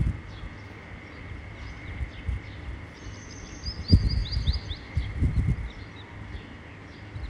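A bird chirping, with a quick run of short falling notes about halfway through, over a steady faint high whine. A few low thumps come and go, the loudest just before the chirps end.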